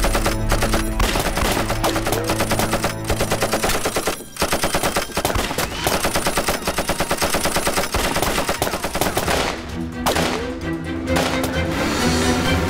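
Heavy machine gun firing in long, rapid bursts, with a short break about four seconds in. The firing dies away near the end and a steady low droning sound takes over.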